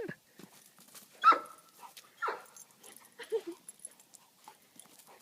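A dog giving a few short, high-pitched cries, the loudest about a second in and another about two seconds in.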